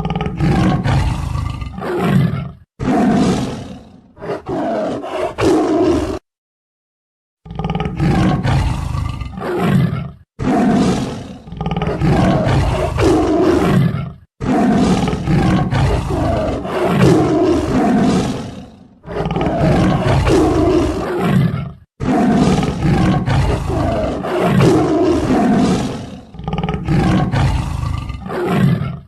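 A large animal roaring and growling repeatedly, in a string of separate clips joined by abrupt cuts, with a short silent gap a little after six seconds in.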